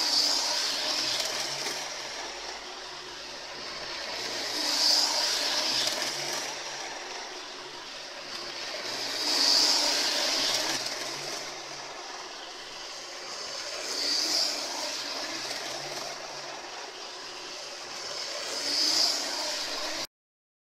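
Lima OO-gauge Class 156 Super Sprinter model train running laps of a small test loop, its motor whirring and wheels running on the rails, swelling louder each time it passes close by, about every five seconds. The sound cuts off suddenly near the end.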